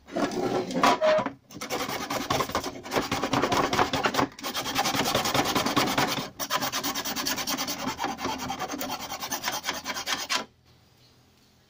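Hand file rasping back and forth along the edge of a hole cut in a plastic stereo panel, smoothing off leftover melted plastic. The strokes are quick and continuous, with a few short pauses, and stop about ten and a half seconds in.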